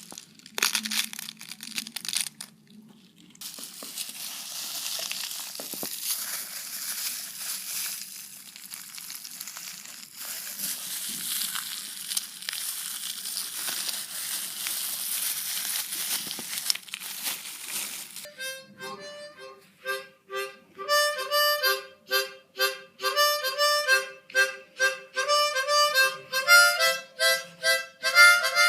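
A long stretch of dense, hiss-like noise full of small clicks, like a foley effect. About two-thirds of the way through it gives way to instrumental music played in short, rhythmic chords.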